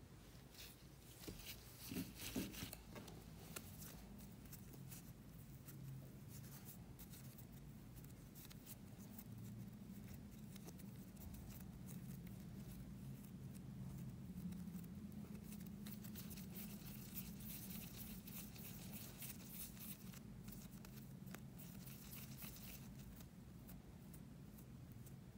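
Hands pinching, folding and rolling soft bread dough into balls: faint soft squishing and sticky tearing of the dough. There are a few soft thumps about two seconds in, and a steady low hum underneath.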